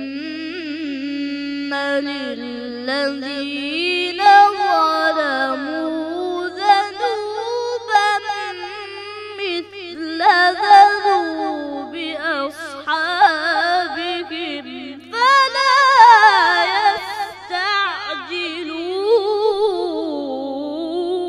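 A boy reciting the Quran unaccompanied in the melodic chanted style: one voice holding long notes with ornamented turns that rise and fall in pitch.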